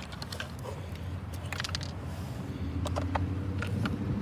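Scattered light clicks and knocks, like plastic parts being handled, over a low steady motor hum that gets louder about two and a half seconds in.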